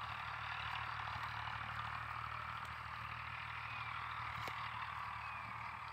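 Steady outdoor background: a continuous high hiss over a low, even hum like a distant idling engine, with a few faint short falling chirps and a faint click about four and a half seconds in.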